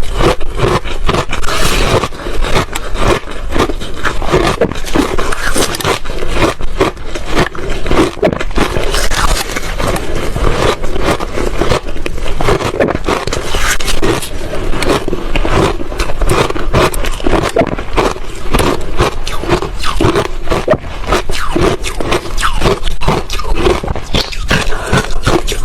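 Ice being bitten and chewed: a loud, dense, unbroken run of sharp crunches and cracks.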